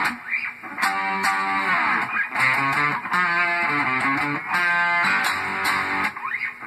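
Gibson Flying V electric guitar fitted with DiMarzio Super Distortion and Fred pickups, played amplified: a riff of picked chords and single notes with a couple of bent notes.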